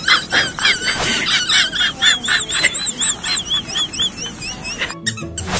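A dog giving a rapid run of short, high-pitched calls, about four a second, which stops abruptly about five seconds in.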